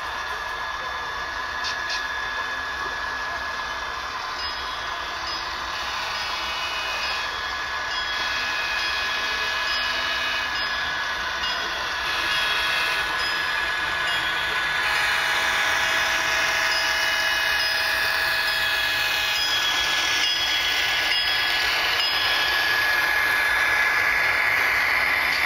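HO-scale model freight train running on the layout, getting louder as its locomotive comes close and passes near the end. Steady high tones run throughout, with a faint high beep repeating through the middle.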